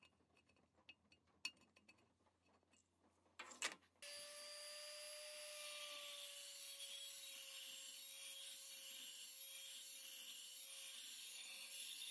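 Light clicks and rustles of wiring and sockets being handled, then about four seconds in a handheld rotary tool starts and runs steadily with a high whine. Its small bit scours the paint out of a socket hole in the cast-iron stand.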